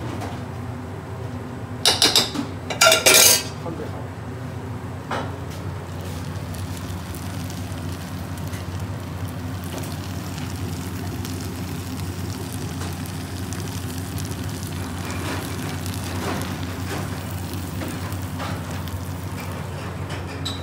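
Chicken curry sizzling and being stirred in a large aluminium pot on a gas burner. A metal utensil clatters loudly against the pot twice, about two and three seconds in, then once more softly, over a steady hum from the kitchen extractor.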